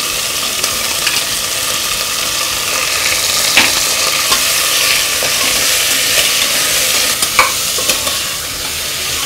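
Raw mutton pieces sizzling in hot oil with fried onions and whole spices in a stainless steel pressure cooker, making a steady frying hiss. A spatula stirs them, with a couple of short scrapes against the pot partway through.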